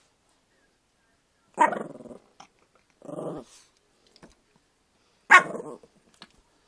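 A pet dog barks twice, sharp and loud, about three and a half seconds apart. Between the barks comes one shorter, lower call. She is demanding that her owner get up.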